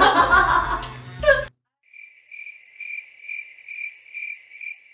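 A woman laughing hard, cut off abruptly about a second and a half in. Then a cricket-chirping sound effect over dead silence: short chirps at one steady pitch, about two and a half a second.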